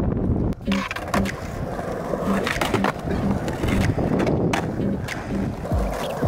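Skateboard wheels rolling over stone paving slabs: a steady rolling noise with short clicks repeating at a fairly regular beat, and a low thump near the end.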